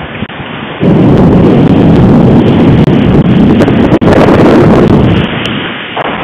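Thunderstorm on an outdoor nest camera's microphone: a loud rush and rumble comes in about a second in, lasts about four seconds, then eases back to a steady lower noise.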